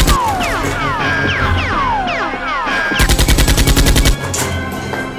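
Dubbed automatic-gunfire sound effect laid over Nerf blaster footage: a rapid burst of about ten shots a second that stops just after the start. Then comes a run of falling whistling tones, and a second burst about three seconds in that cuts off a second later, with background music underneath.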